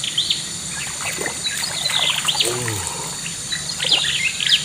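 Birds chirping in short clusters of quick rising and falling notes, over a steady high-pitched background drone. A brief low falling call sounds about halfway through.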